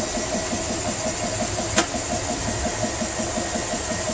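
GX CS3 portable 4500 psi PCP compressor running just after start-up, pumping with a steady beat of about seven or eight strokes a second as it begins filling an air rifle, over the steady hiss of its cooling fans. A single sharp click about two seconds in.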